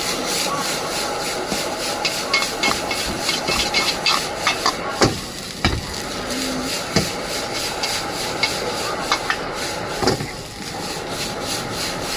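Metal spatula scraping and clattering against a wok as egg fried rice is stir-fried: rapid repeated scrapes and taps, with a few heavier knocks, over a steady hiss of frying.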